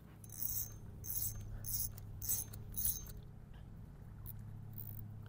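Spinning reel being cranked in short turns, its gears giving a high rasping whir-click about every half second for the first three seconds and softer after that, as line is reeled in on a hooked fish. A low steady hum runs underneath.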